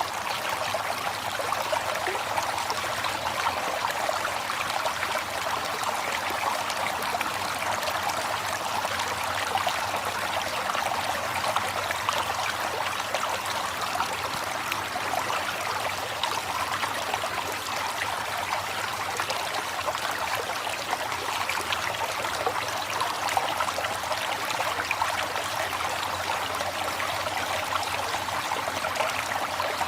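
River water flowing, a steady rushing and trickling over the whole stretch with no change.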